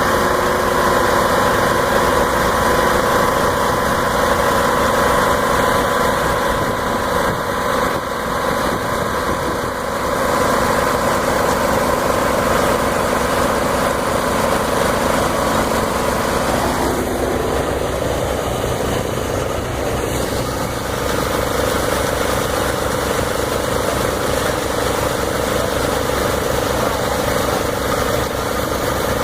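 An engine running steadily, its tone changing about seventeen seconds in.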